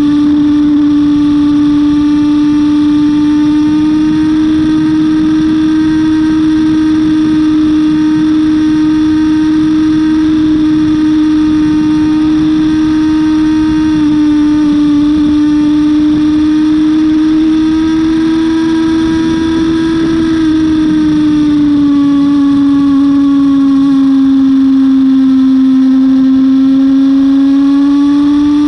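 Yamaha YZF-R6's inline-four engine running hard at high revs in third gear, its note nearly level, then dipping about three-quarters of the way through and climbing again near the end. There is a rush of wind underneath.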